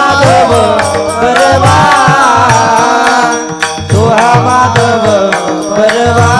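Devotional kirtan music: a voice draws out long, wavering sung phrases over a steady held drone. A hand drum beats a regular rhythm and small cymbals click along.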